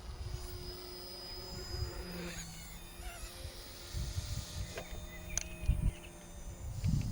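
OMP M1 micro RC helicopter in flight, its electric motor and rotor whine heard as thin steady tones that shift in pitch about two seconds in. Wind buffets the microphone in gusts throughout.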